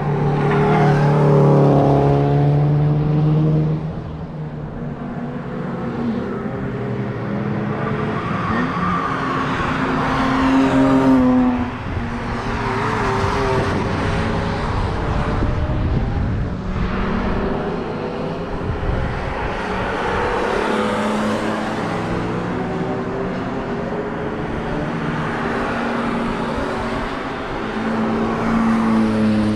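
Cars driven hard past on a race circuit, one after another, with no gap between them. Each engine's pitch slides as it comes by and fades. The loudest passes are in the first few seconds and about ten seconds in.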